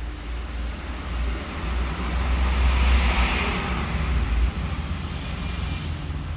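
Road traffic: a low rumble with a rushing noise that swells to its loudest about three seconds in and then eases, as of a vehicle going past.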